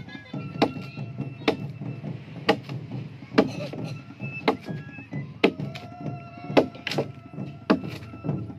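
Machete (parang) chopping into the wood inside a dugout canoe hull being hollowed out, sharp chops at about one a second.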